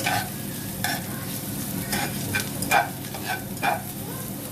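Chicken sautéing in hot oil with garlic, onion and ginger, sizzling steadily while a cooking utensil stirs it and scrapes the pan about seven times.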